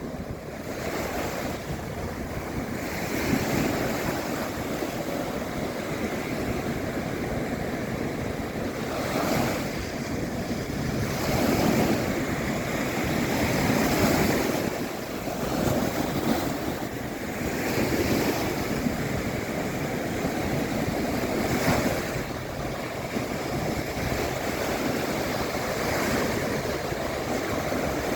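Sea waves breaking and washing on a shore, a continuous rush that swells and eases every few seconds, with a few stronger surges.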